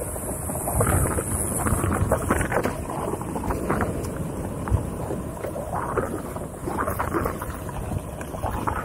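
Wind rushing over the camera microphone as a Onewheel rides a sandy dirt trail, with scattered short scrapes and rattles from the board's tyre rolling over the ground.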